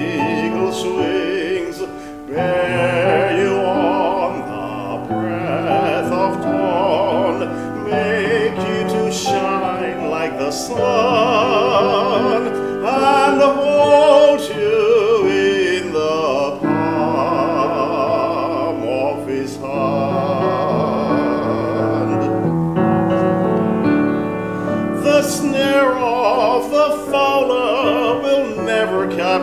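A man singing a solo in a classical, operatic style with wide vibrato, accompanied by grand piano.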